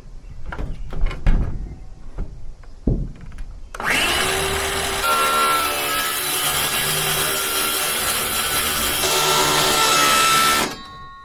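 A few knocks and handling sounds, then a power saw starts about four seconds in and runs loud and steady while cutting, stopping abruptly near the end.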